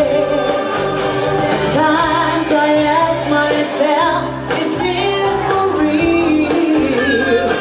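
A woman singing live into a handheld microphone over instrumental accompaniment.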